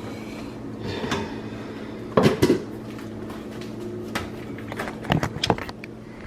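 Several sharp knocks and clatters of things being handled in a kitchen, with the loudest pair about two seconds in, over a steady low hum.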